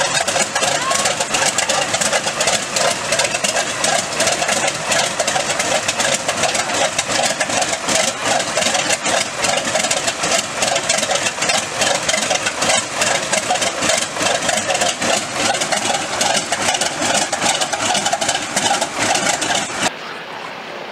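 Grumman TBF Avenger's 14-cylinder Wright R-2600 radial engine running at idle on the ground, a steady rapid beat of firing pulses with the propeller turning. The sound drops off suddenly near the end.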